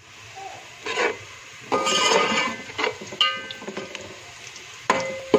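Slotted metal spoon scraping and knocking against a steel pot while stirring onions frying in oil, with about five sharp clanks that each ring briefly.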